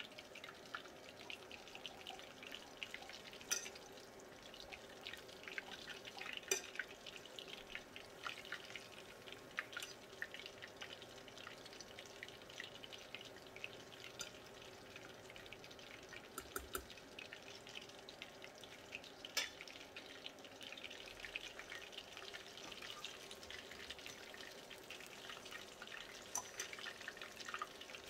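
Battered chicken lollipops deep-frying in hot oil on a medium flame: a steady sizzle full of small crackles, with a few sharp pops.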